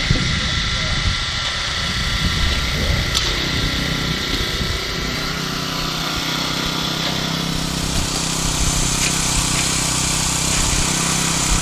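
Small engine running steadily with a constant hum, typical of the gas-powered tools used for screeding or finishing a concrete slab.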